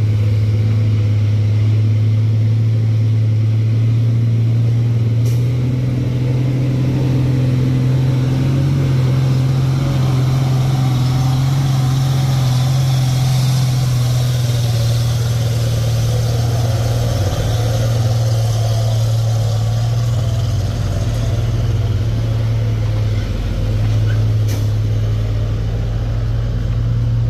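Heavy diesel trucks labouring up a steep unpaved grade: a loud, steady low engine drone. It shifts slightly in pitch about five seconds in and grows rougher, with more tyre and gravel noise, around the middle as one truck passes close.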